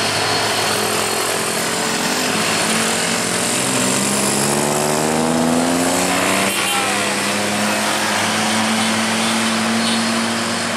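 Heavy loaded cargo truck's engine labouring up a steep climb with a steady low drone, amid passing traffic. A motor scooter comes past close by, its engine pitch rising as it nears and dropping suddenly as it goes by about six seconds in.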